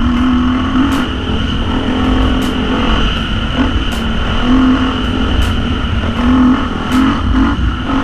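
Dirt bike engine running on the move, its note swelling and easing as the throttle is worked, over a heavy low wind rumble on the microphone and scattered sharp clicks.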